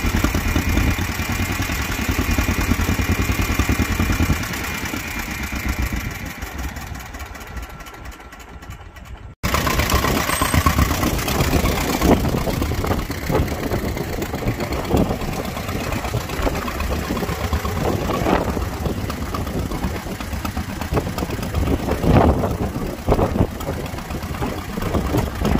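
John Deere MT tractor's two-cylinder engine running. It fades away from about four seconds in, then after a sudden cut it is heard close up, running with an uneven pulsing beat.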